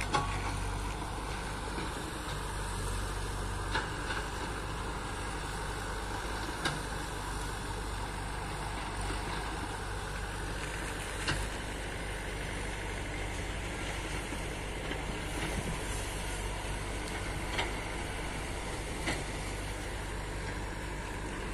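Tata Hitachi crawler excavator's diesel engine running steadily while it digs, with several short knocks a few seconds apart.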